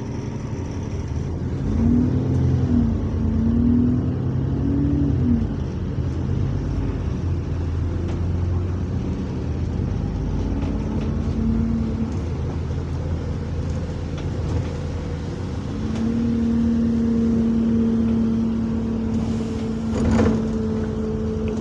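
Double-decker bus engine and transmission heard from inside the passenger saloon as the bus pulls away: the engine note rises and falls through the gear changes in the first few seconds, then settles into steady running with a steady whine. A single thump near the end.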